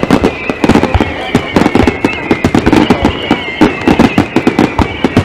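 Fireworks going off in rapid, irregular succession: many sharp bangs and crackles close together, over a high, wavering whistle.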